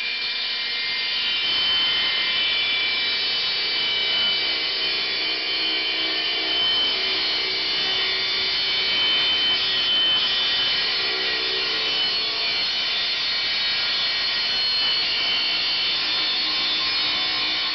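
Table saw blade cutting steadily through a reclaimed timber board clamped in a homemade sled jig, skimming the board's face flat. The saw runs under load with a steady whine.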